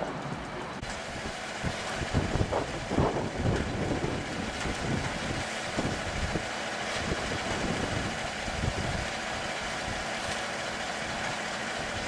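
Strong, gusty wind buffeting the microphone: irregular low rumbling gusts over a steady rushing hiss.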